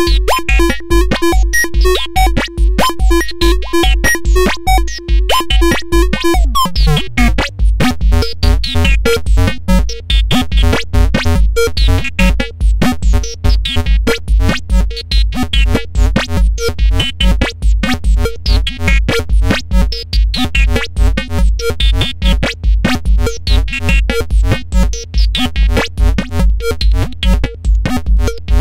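Modular synthesizer playing a repeating electronic sequence over a steady low pulse and fast clicking rhythm. About seven seconds in, the held tone slides down to a lower pitch.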